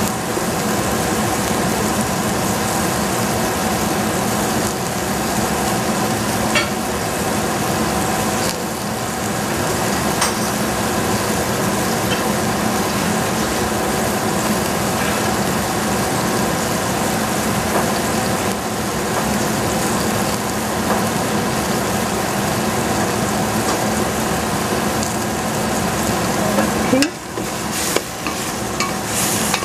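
String beans sizzling and bubbling in a little liquid in a stainless steel pot, a steady frying hiss. About three seconds before the end a wooden spatula stirs them, with a few scrapes and knocks against the pot.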